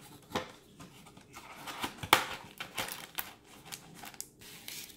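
Crinkly plastic wrappers of sealed sticker packs rustling and crackling as they are handled in their box, in irregular bursts, with the sharpest crackle about two seconds in.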